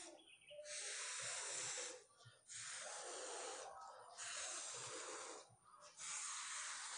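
A woman's voice making the phonics sound of the letter F, a long voiceless "fff" hiss, four times in a row with short pauses between.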